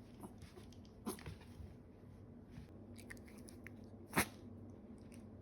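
Pomeranian sneezing: one short, sharp sneeze about four seconds in, after a fainter, similar burst about a second in.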